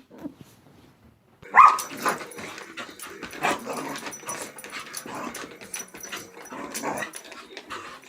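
A dog vocalising in an irregular string of short sounds, starting loudly about a second and a half in.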